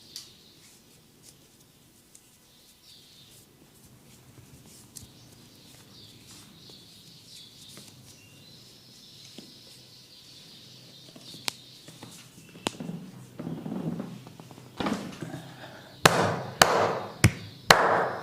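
Head massage by a barber: faint rubbing at first, then a run of sharp cracks and slaps of hands on the head and hair, coming faster and louder toward the end.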